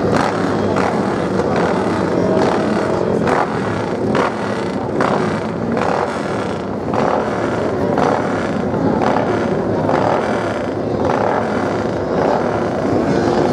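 Motocross bike engine running as it rides along the beach sand, a steady dense noise.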